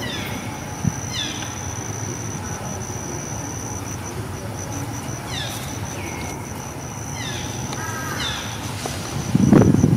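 Short descending chirping calls, repeated every second or so, over a steady high-pitched insect drone; a brief low rumble near the end is the loudest moment.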